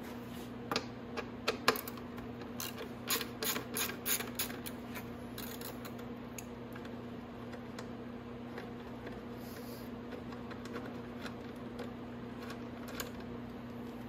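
Ratchet wrench with a 10 mm socket clicking in quick, uneven runs while a headlight-mount bolt on a 125cc motorcycle is loosened, mostly in the first few seconds. A steady low hum underneath.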